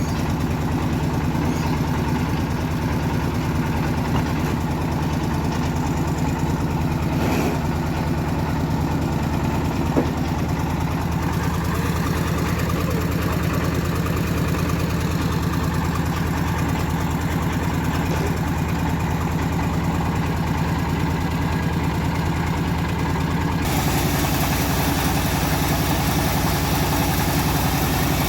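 Engine of a homemade bandsaw mill running steadily at idle, a constant low hum. About twenty-three seconds in, the sound changes abruptly and gets brighter.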